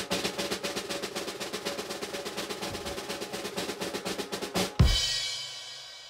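Drum roll of rapid snare strokes ending in a loud hit with a cymbal crash about five seconds in, the crash ringing out: a music sting.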